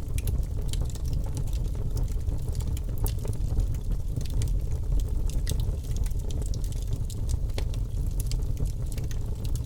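Wood fire burning in a fireplace, crackling with many small irregular pops over a steady low rumble of the flames.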